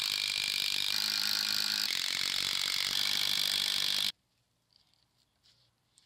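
Cordless power driver running steadily, driving screws through the rungs of a cedar log ladder. It stops abruptly about four seconds in.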